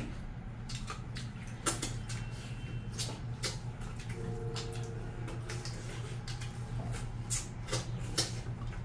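Wet mouth noises of two people eating spicy duck curry and rice by hand: chewing, lip-smacks and sucking meat off duck bones, heard as many short sharp clicks, over a steady low hum.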